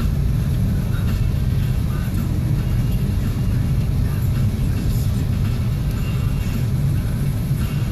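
Steady low rumble of a car in motion heard from inside the cabin: engine and tyres on a snow-covered road.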